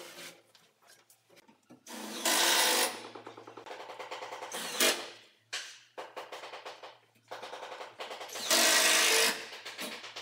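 Cordless drill driving screws into a pull-out wire basket's runners: two short, loud runs of the motor, about two seconds in and again near the end, each followed by a fast, even rattling as the screw is driven home.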